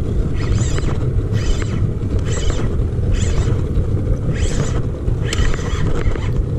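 Small fishing boat under way with a steady low rumble of motor and wind on the microphone. A short hissing swish comes back about once a second.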